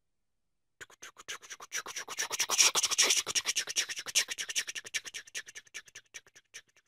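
Recorded sound effect of a train passing: a rapid, even clatter of wheels on the rails that swells to a peak and then fades away.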